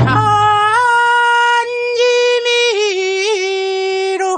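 Korean folk farming song: a single high singing voice holds long, drawn-out notes, stepping down in pitch about halfway and wavering briefly near the end. A low drum stroke sounds at the very start.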